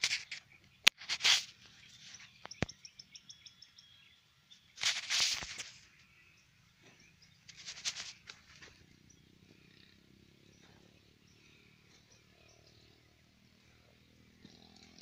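Outdoor ambience with a bird's quick run of repeated high chirps, broken by a sharp click about a second in and three loud bursts of crackling rustle in the first half; the rest is quiet background.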